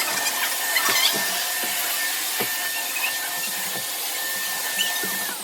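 Kitfort KT-555 upright vacuum cleaner running with a steady high whine. Near the end it is switched off and the motor winds down, its whine falling in pitch.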